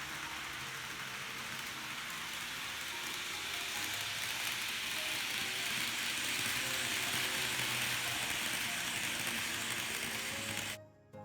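Small electric motor and worm gearing of an N-gauge model train power unit running, a steady grinding whir that stops abruptly near the end.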